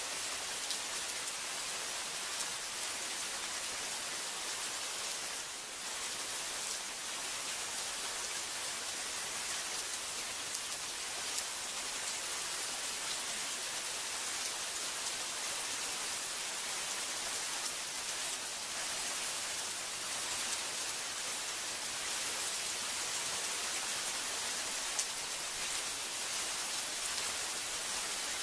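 Heavy rain falling steadily, an even hiss with a few sharper drop ticks here and there.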